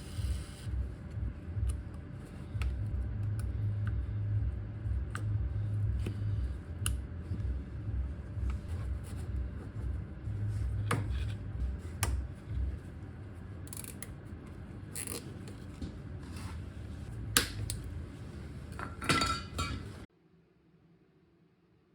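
Metal hand tools clicking and clinking on steel suspension parts: scattered light clicks with a few louder clinks, over a low pulsing rumble that fades partway through. The sound cuts off abruptly near the end.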